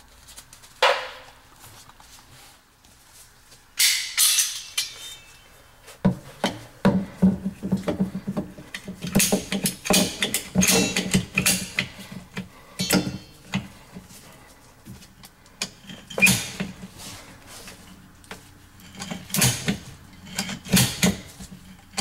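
Ratcheting PVC pipe cutter clicking in several runs of sharp strokes as it is squeezed through an air handler's PVC condensate drain pipe.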